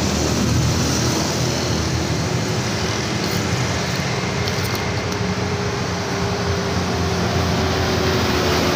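An engine running at a steady speed, with an even hum and no change in pitch.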